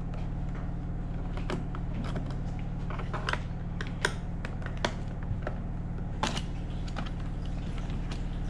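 Scattered small clicks and taps of a screwdriver working screws out of a plastic gel blaster housing, at irregular intervals over a steady low hum.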